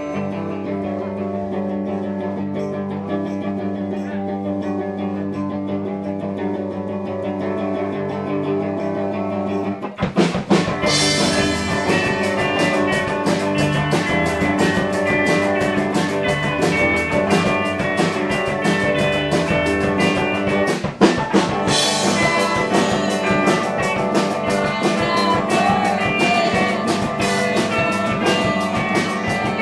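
A live rock band playing: electric guitar alone for about ten seconds, then the drum kit and the rest of the band come in together.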